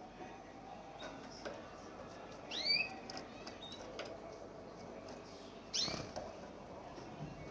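White canary giving two short rising chirps about three seconds apart, with a few faint clicks between them.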